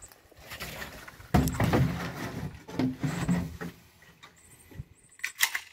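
Water glugging out of a plastic jug and splashing over a muddy pistol onto the sand, loudest from about a second and a half in. Near the end, a few sharp metallic clicks as the HK USP Compact .45's slide and controls are worked, which is hard going because the mud-fouled gun won't decock and its slide binds.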